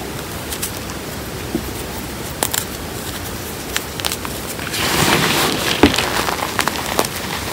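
Hands squeezing and crumbling a mix of gym chalk, cornstarch and chalk chunks in a bowl: powdery crunching with scattered sharp crackles, growing louder and denser about five seconds in.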